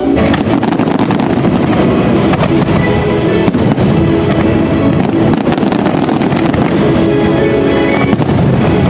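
A dense barrage of fireworks, starting suddenly and going on as rapid bangs and crackling, over loud show music with sustained notes.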